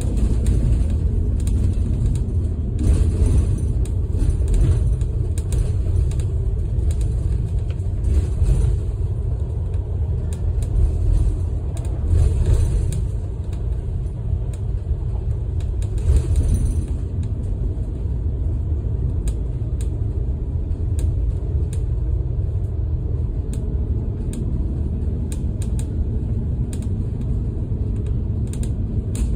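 Steady low rumble of a large vehicle's engine and tyres on the road, heard from inside the cab while cruising on a highway, with scattered faint ticks and rattles.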